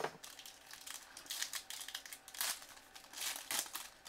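Foil wrapper of a hockey card pack crinkling in several short bursts as it is handled and opened by hand, after a single knock at the very start.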